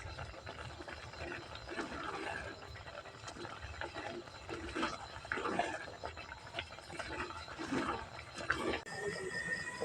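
Scattered short animal calls over a steady background hiss. Near the end the calls give way to a steady high tone.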